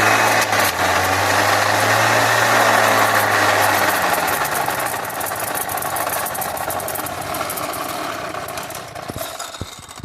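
Small two-stroke weed eater engine mounted on a bicycle, running loudly and steadily, then growing quieter from about four seconds in and stopping near the end.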